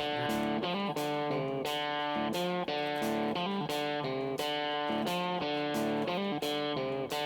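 Background music: guitar, plucked and strummed, with a steady rhythm of changing chords.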